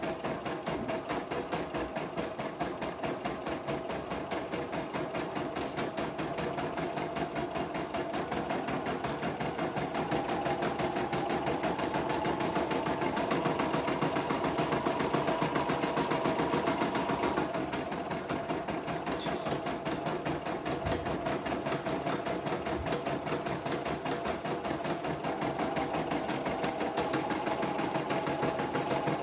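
CNY E960 computerized embroidery machine stitching a design in embroidery mode: a fast, even run of needle strokes, a little louder for a few seconds near the middle.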